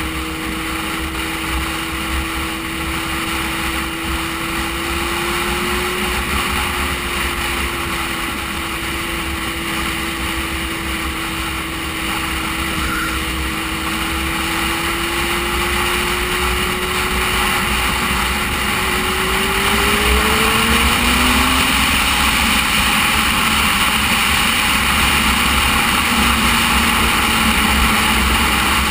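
Motorcycle engine running at steady cruising revs under heavy wind rush. About eighteen seconds in, the engine note rises as the rider accelerates, then falls back to a lower note.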